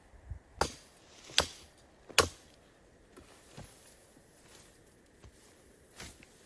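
Sharp knocks: three hard strikes about a second apart, then a single fainter one near the end.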